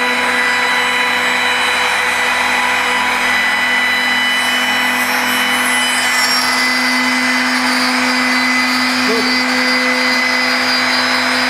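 CNC marble-milling machine running steadily, its spindle and cutting bit working the stone: a constant whine over a rushing hiss.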